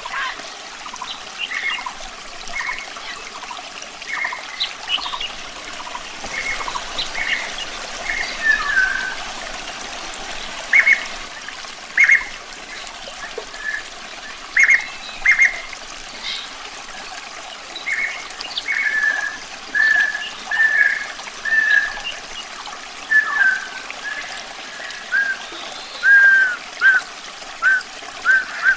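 Nightingale singing in short whistled notes and phrases, with quick runs of repeated notes in the second half, over a steady trickle of running water.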